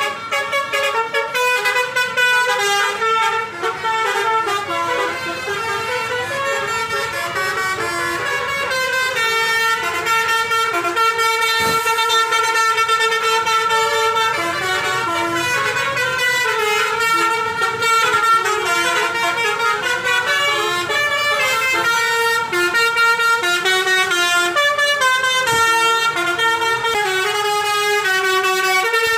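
Bus telolet horn: a set of musical air horns playing a continuous tune, stepping from note to note with some notes held for a second or two.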